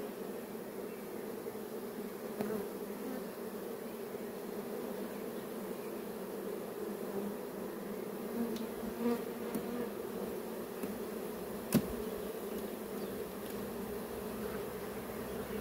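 Honeybees humming steadily around an open hive, a dense buzz that never lets up. A few light knocks of wooden frames being set into the hive box sound over it, the sharpest a click near the end.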